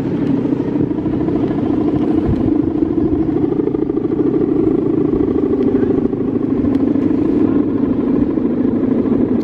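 Steady, loud buzzing drone of the guangan (humming bow) on a big Balinese bebean kite in flight, wavering slightly in pitch.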